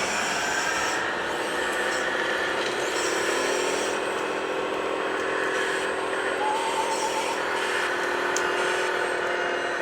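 Radio-controlled model construction machines running. A steady motor whine rises slightly in pitch about three and a half seconds in, over a dense mix of mechanical noise.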